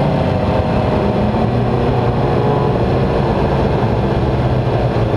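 Race motorcycle's engine running steadily at low revs at low road speed, heard from a camera mounted on the bike, with a haze of wind and road noise under it.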